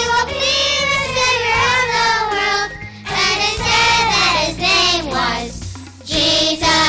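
Children's choir singing a song with instrumental accompaniment, the voices moving phrase by phrase over steady low backing notes, with a brief breath pause near the end.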